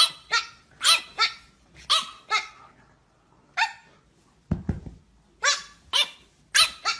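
French bulldog puppy yapping: about ten short, high-pitched barks, mostly in quick pairs. A couple of dull low thumps come about two-thirds of the way in.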